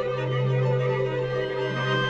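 Contemporary chamber music for string quartet, melodica and computer electronics: a steady low drone with held, sustained tones layered above it. The drone dips briefly about one and a half seconds in.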